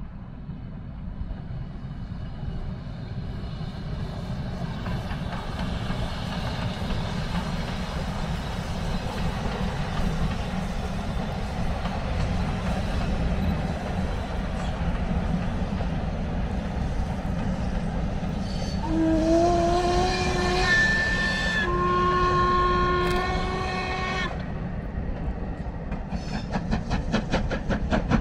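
Steam train passing, its rumble growing steadily louder, with two blasts of the locomotive's steam whistle, several notes sounding together, about two-thirds of the way through. Near the end a fast, even beat comes in.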